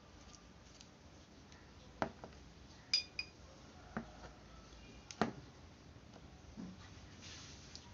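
A metal fork clicking and clinking against a small plastic bowl of paste, about six sharp knocks spread over a few seconds, one of them ringing briefly.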